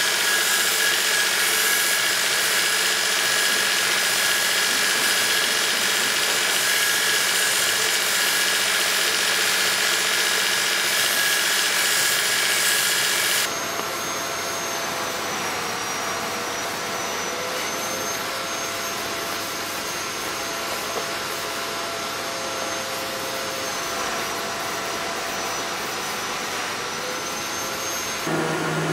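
Belt sander running with a wooden axe handle pressed against its belt: a steady hiss of abrasive grinding the wood over the motor's hum. About halfway through the sanding stops and the sander runs on unloaded, quieter.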